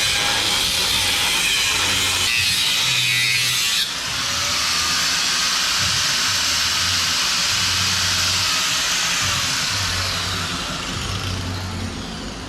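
Angle grinder with a flap disc grinding the steel frame rails smooth, running continuously. The sound changes abruptly about four seconds in and tails off near the end.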